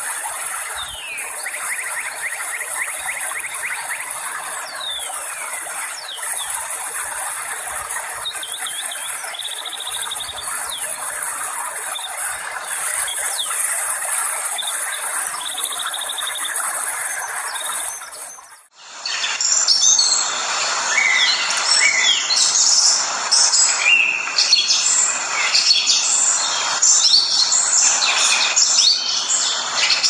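Rushing river water with birds chirping over it. About two-thirds of the way through, the sound cuts off suddenly and gives way to a louder, busier chorus of many chirping birds.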